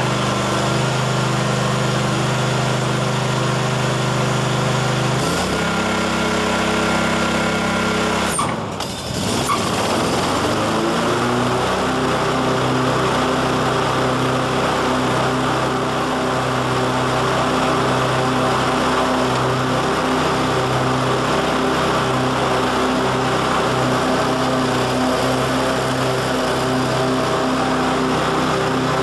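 SCAG Advantage walk-behind mower's 19 hp Kawasaki twin-cylinder engine running steadily. Its note shifts about five seconds in and dips briefly at around eight seconds. It then revs up over a couple of seconds and holds a higher, even speed.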